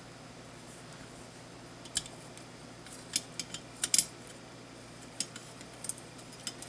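Small metal clicks and taps from an Allen key and rail screw being worked loose and handled on a rifle's handguard rail: a handful of short, sharp, scattered clicks.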